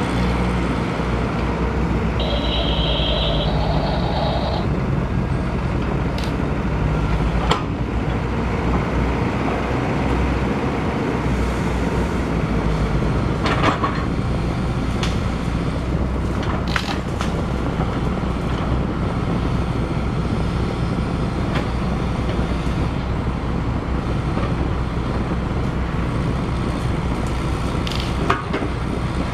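Double E remote-control toy excavator working its arm: a steady engine-like drone with a few sharp clicks, and a brief higher two-step tone about two seconds in.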